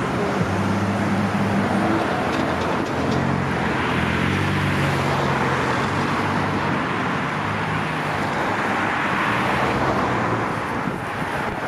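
Busy road traffic: cars driving past with a steady rush of engine and tyre noise and a low engine hum underneath through most of it.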